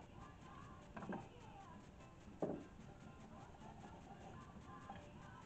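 Quiet handling sounds: a plastic square is laid on a spalted maple blank and moved about, giving two light knocks, about a second in and about two and a half seconds in.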